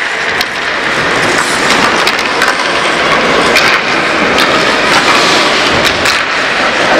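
Ice hockey play: skates scraping the ice and sticks clacking against the ice and puck, a string of sharp clicks and knocks over a steady noisy wash.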